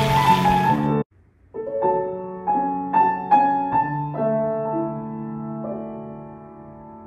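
Background piano music: single notes struck one after another and left to ring, growing quieter toward the end. It starts after a short break about a second and a half in; before that, other music plays over a sizzling hiss and cuts off suddenly about a second in.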